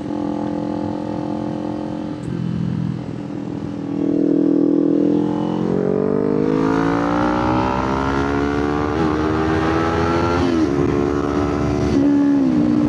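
Kawasaki Ninja 500's parallel-twin engine under way: steady at first, then louder from about four seconds in, rising in pitch as the bike accelerates, with short drops in pitch at three upshifts in the second half.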